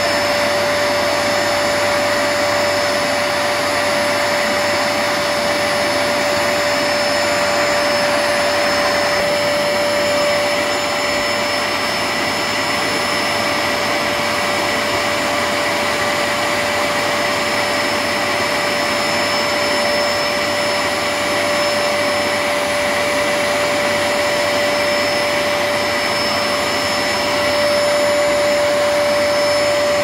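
Vax Platinum Power Max vacuum cleaner running steadily: a continuous rush of air with a steady mid-pitched whine from the motor.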